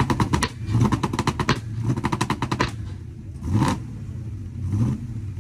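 Modified pickup exhaust crackling and popping in rapid strings of sharp bangs, about ten a second, between throttle blips, then a short rev blip about three and a half seconds in and a weaker one near the end.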